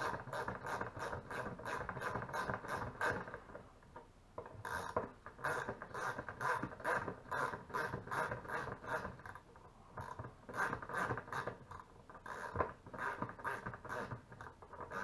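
Ratchet wrench clicking in quick runs of about five clicks a second, with short pauses between runs, as plastic poultry water nipples are tightened into a PVC pipe.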